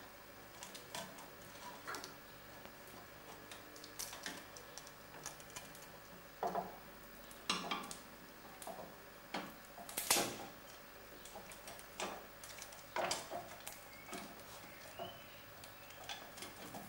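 Steering-gear housing cover being handled and fitted by hand over the chain and sprocket: scattered light clicks, taps and knocks at irregular intervals, the strongest about ten seconds in.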